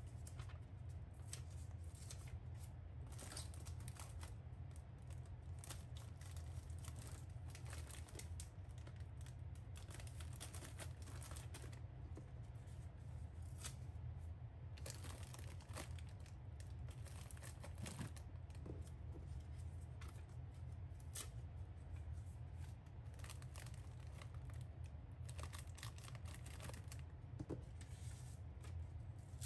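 Sticker labels being peeled off their backing sheet and pressed onto crinkly plastic bags: irregular short peeling rips and plastic rustles, over a steady low hum.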